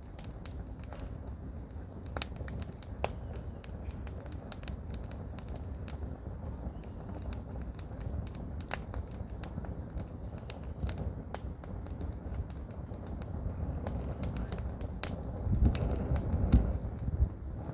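Firewood burning, crackling with irregular sharp pops and snaps, over a low rumble of wind that gusts louder near the end.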